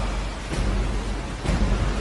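Rushing river rapids with the deep beats of a film score, two low drum thuds about a second apart.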